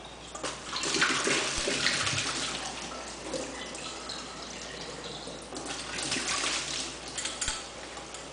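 Tap water running into a glass hookah base and sloshing around inside it as it is rinsed of vinegar over a stainless steel sink, loudest in the first few seconds, with a couple of light knocks.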